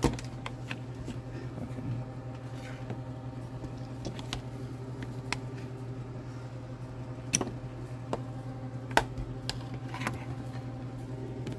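Scattered sharp clicks of scissors snipping the ends off runner beans, over a steady low hum.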